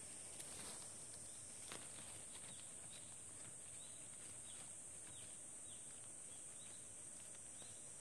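Faint, steady high-pitched drone of insects, with a few short, falling chirps in the middle and a couple of soft clicks and rustles of handling close by.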